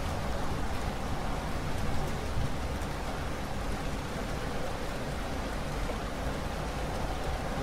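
Steady rain falling, an even dense hiss with a deep low rumble beneath it.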